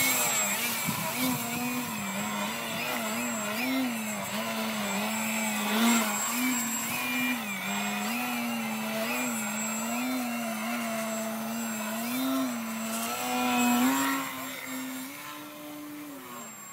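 Electric motor and propeller of a small foam RC aerobatic plane hovering on its prop, its whine wavering up and down with constant throttle corrections. Near the end the pitch rises and holds briefly, then drops as the sound fades away with the plane climbing off.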